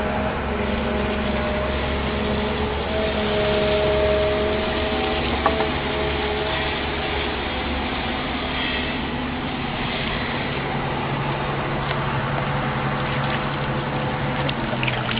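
Excavator engine running steadily, with a whining tone over roughly the first six seconds.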